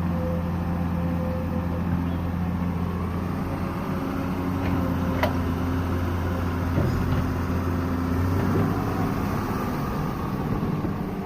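Excavator's diesel engine running steadily with a low, even hum, and one sharp click about five seconds in.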